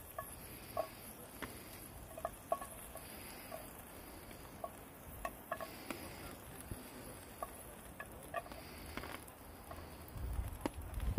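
Light, irregular crisp ticks and snaps as an onion is cut in the hand with a knife and the small pieces drop into a pan. A low rumble of wind on the microphone comes in near the end.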